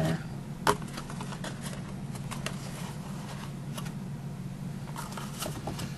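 Cardstock and tape being handled and pressed into a paper box's corner: light rustling and small taps, with one sharp tap just under a second in, over a steady low hum.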